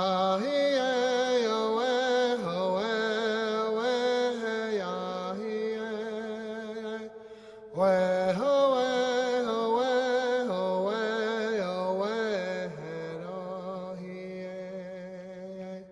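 Background music: a single voice chanting long, wavering melodic phrases. It breaks off briefly about seven seconds in, then starts a new phrase.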